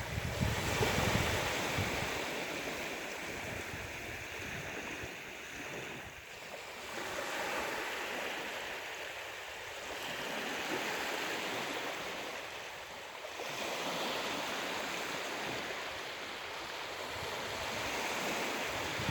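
Ocean waves breaking and washing on the shore, the surf swelling and easing every few seconds.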